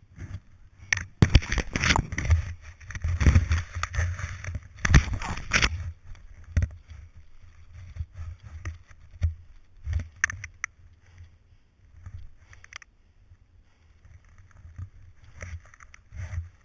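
Snow scraping, churning and knocking against a helmet-mounted action camera, heard muffled through its case: loud, rumbling bursts for the first six seconds or so, then only scattered knocks and rustles.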